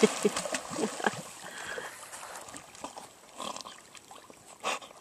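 Black Labrador splashing into pond water and swimming, the splashing loudest at the start and fading to softer paddling, with a couple of short splashes in the second half.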